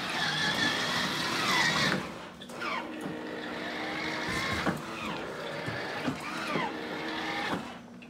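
Kids' electric ride-on toy LaFerrari running: a steady whine for about the first two seconds, then several short falling whines.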